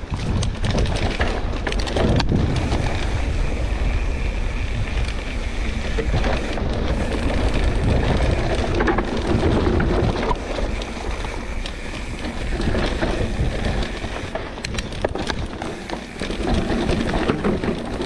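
Wind buffeting the microphone over the rumble and crunch of a Pivot Switchblade mountain bike's tyres rolling fast down a dry dirt and rock trail, with frequent knocks and rattles as the bike hits bumps.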